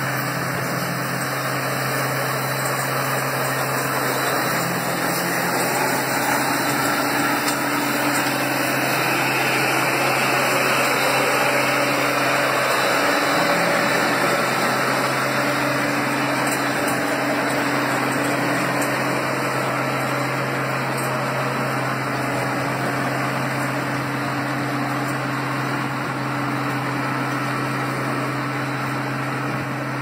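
Diesel engines of a road-surfacing machine and its dump truck running steadily, a constant low hum under a broad mechanical rumble.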